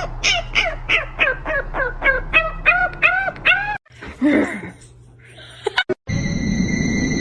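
A bird calls in a quick run of about a dozen honking calls, each one rising and then falling in pitch. A rougher, shorter sound follows. After an abrupt cut about six seconds in, a steady horn-like tone starts over a rushing noise.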